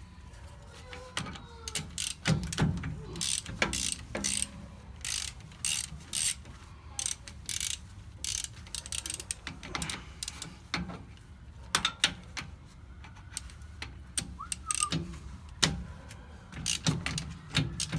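Hand ratchet wrench clicking in irregular short runs as the 14 mm caliper bolts on a rear disc brake are backed out, with a few metallic taps of tools.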